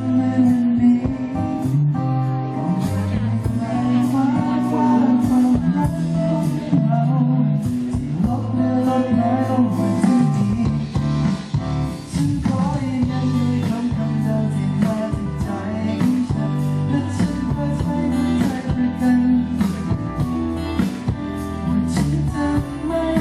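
Live band playing a Thai pop ballad, with a male singer over guitar and sustained chords, and sharp beats throughout.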